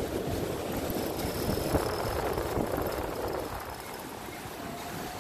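Wind buffeting a moving camera's microphone: a low, fluttering rumble that eases a little about three and a half seconds in.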